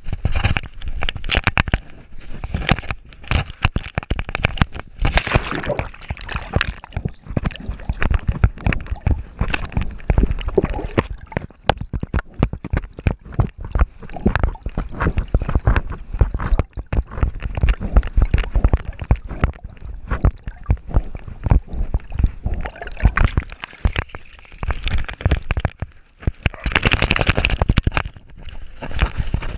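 Water sloshing and gurgling around a GoPro strapped to a swimming dog, with a dense, irregular run of knocks and rattles from the camera mount as the dog moves.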